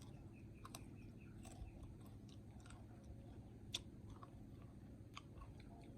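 Faint chewing of mango, with scattered small wet mouth clicks and one sharper click a little past the middle.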